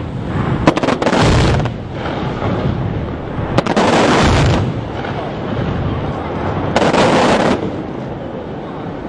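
Fireworks going off: three sharp bangs about three seconds apart, each followed by about a second of loud noisy wash, over a steady low rumble.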